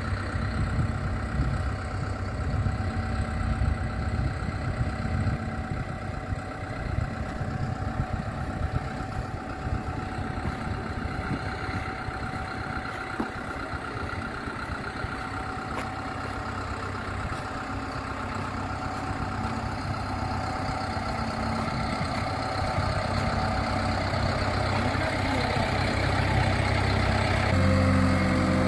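An engine running steadily with a low hum, growing gradually louder, and a sudden change to a higher, stronger note near the end.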